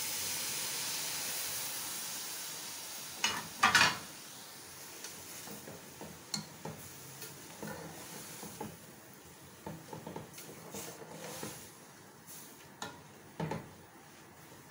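Boiled milk poured into a hot pot of grated pumpkin, hissing and sizzling steadily for the first few seconds. Then a spatula stirs it, with two loud knocks against the aluminium pot about three and a half seconds in and lighter taps and scrapes after.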